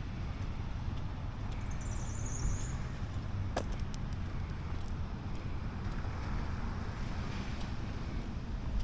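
Steady low rumble of a moving passenger train heard from inside a coach, with a brief high chirping about two seconds in and a single sharp click a little later.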